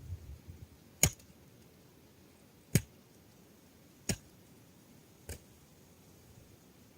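Four sharp, isolated clicks spaced about a second and a half apart, the last one fainter.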